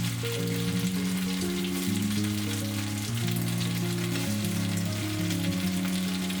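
Food frying and sizzling on a hot grill plate, a steady crackle. Background music of slow, held low notes plays over it.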